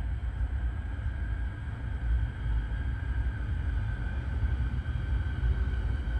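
Siemens Nexas electric suburban train running into the platform: a steady low rumble with a thin high whine held over it, the whine growing a little louder near the end.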